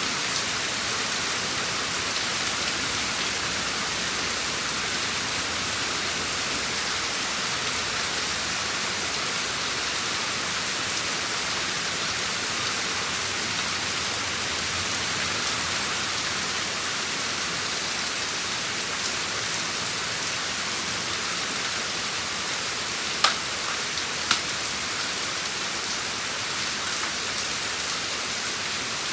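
Steady rain falling, an even hiss of drops on surfaces, with two sharp drips or ticks a second apart near the end.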